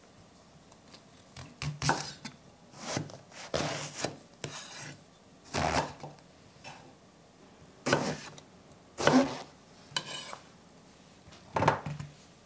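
A kitchen knife cutting eggplants on a wooden cutting board: about eight unevenly spaced cuts, some short chops onto the board and some longer slicing strokes through the length of the eggplant.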